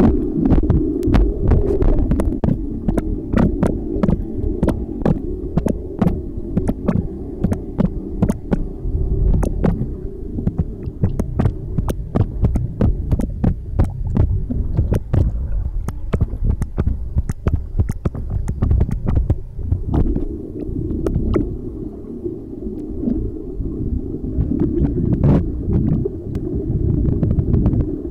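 Muffled underwater noise picked up by a submerged camera: a steady low rumble of moving water, overlaid by many irregular sharp clicks.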